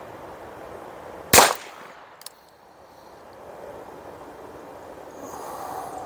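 A single shot from a Ruger Wrangler Birds Head .22 LR single-action revolver, a sharp crack about a second and a half in, with a faint short click about a second later.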